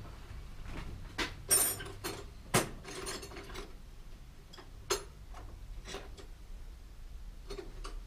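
Hand tools and metal bike parts being handled: scattered clicks and clanks, with three louder, sharper knocks about one and a half, two and a half and five seconds in, the first with a short metallic ring.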